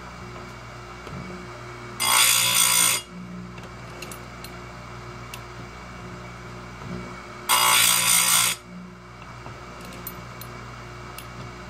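Oregon 410-120 chainsaw-chain grinder sharpening a 3/8 saw chain: the wheel grinds a cutter tooth twice, each a harsh grind about a second long, the second about five and a half seconds after the first. Between grinds the motor hums steadily, with small clicks as the chain is advanced and clamped for the next tooth.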